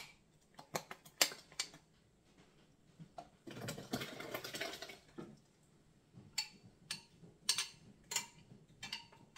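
A spoon tapping and scraping against a blender jar as blended coconut is knocked out into a bowl: a string of sharp irregular clicks and taps, with a noisy scraping rush for about a second and a half in the middle.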